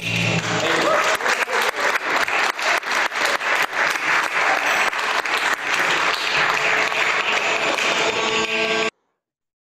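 Applause with many separate handclaps, following the fading last chord of a choir anthem. It cuts off abruptly about nine seconds in.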